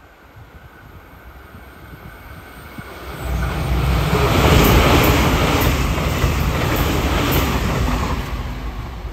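JR Kyushu 885 series electric limited express train passing through a station at speed. Its rumble builds as it approaches, turns into a loud rush of wheels and running gear about three seconds in as it passes close, with a run of sharp regular clicks, then eases off near the end.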